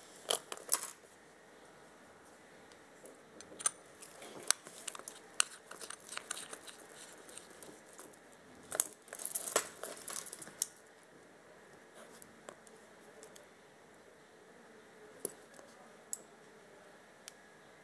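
Steel link bracelet and case of a watch clinking and rattling as it is handled, in clusters of sharp light clicks, the busiest about a second in and from about 8 to 11 seconds in, with a few single clicks near the end.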